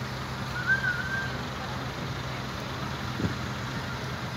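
Crane engine running steadily under load while it hoists a boat, a low even hum. A brief high wavering whistle sounds about a second in.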